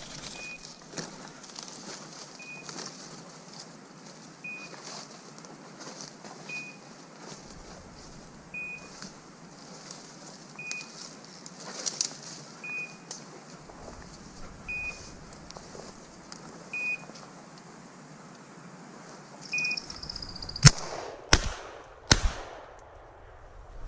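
A hunting dog's beeper collar gives one short, high beep about every two seconds, over footsteps pushing through dry brush. Near the end come three sharp, loud cracks within about a second and a half.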